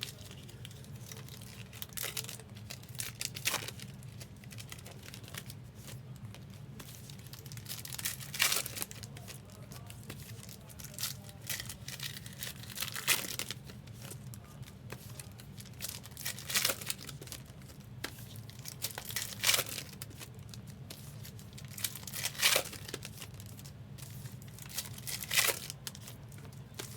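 Trading-card pack wrappers crinkling and tearing, with sharp rustles every few seconds as cards are handled.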